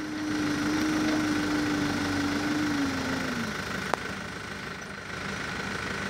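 New Holland backhoe loader's diesel engine running at raised revs, then dropping back toward idle about three and a half seconds in. A single sharp click comes just before four seconds.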